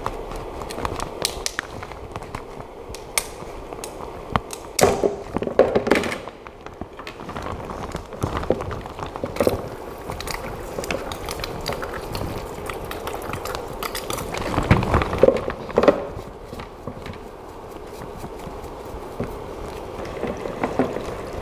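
Hand-rinsing a resin 3D print in a plastic tub of isopropyl alcohol: irregular clicks and knocks of the build plate and print against the plastic tub, with liquid swishing and scrubbing. It is loudest about five and fifteen seconds in.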